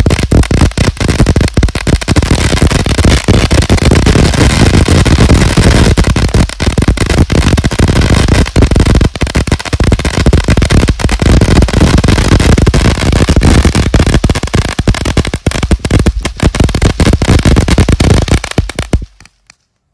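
Brothers 'Extra Zesty' firework fountain spraying a very, very loud crackling shower: a continuous dense rush of rapid crackles and pops from its crackling stars. It burns out suddenly about a second before the end.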